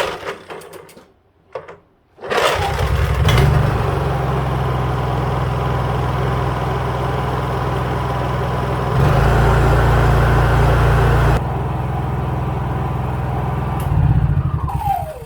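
Honda EU3000is inverter generator's single-cylinder engine starting on its freshly cleaned carburetor. It catches about two seconds in and runs steadily, with its speed stepping up for a couple of seconds in the middle and rising briefly near the end. It is then shut off and winds down with a falling tone. The clean start shows the hard-start problem is fixed.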